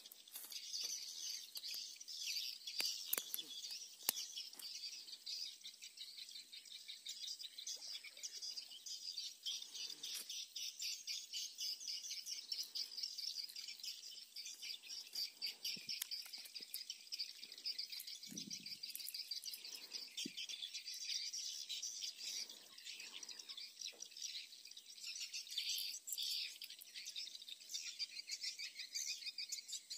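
Steady, dense high-pitched chirping of birds and insects, with a few brief soft knocks and rustles, the clearest one about two-thirds of the way through.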